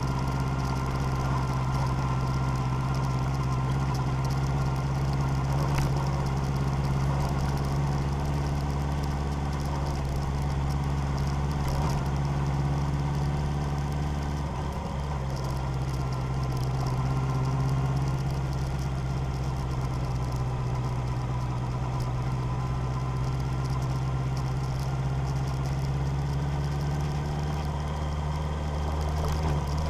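A vehicle engine running steadily at low revs on an off-road drive, its pitch nearly constant apart from a brief dip and recovery about halfway through.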